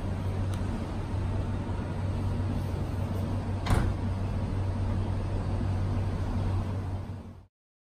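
The boot lid of a BMW F10 closing under a retrofitted powered tailgate with vacuum soft close, shutting with one brief thud about four seconds in, over a steady low hum.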